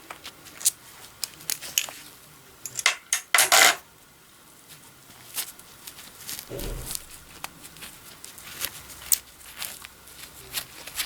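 Small metal parts and hand tools clicking and clinking as they are handled, with a louder brief rattle about three and a half seconds in and a single dull thump near seven seconds.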